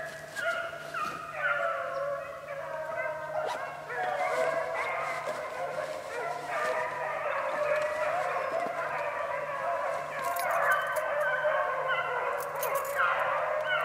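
A pack of beagles baying together, many overlapping voices with no pause: the hounds have struck a rabbit's scent and are running the track.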